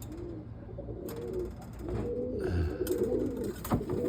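Several roller pigeons cooing at once in their loft, overlapping coos rising and falling in pitch, with a single sharp tap near the end.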